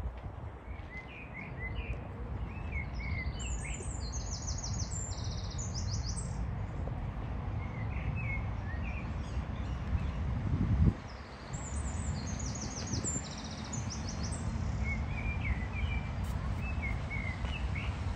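Small songbirds singing in repeated phrases of quick high trills and chirps over a steady low rumble, with a single thump about eleven seconds in.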